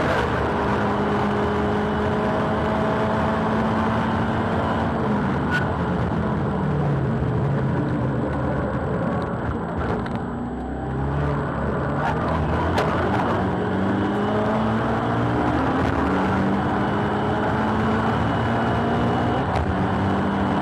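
Subaru WRX STI (VAB) turbocharged EJ20 flat-four, boost-up on the stock turbo, heard from inside the cabin at speed on a circuit lap. The engine note holds, then falls for a few seconds, dips briefly about ten seconds in, and climbs again in steps through several upshifts.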